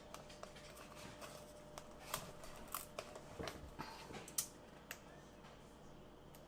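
Scattered light crinkles and small clicks of a peel-and-stick vinyl backsplash tile sheet being handled and pressed into place, busiest in the middle, over a faint steady hum.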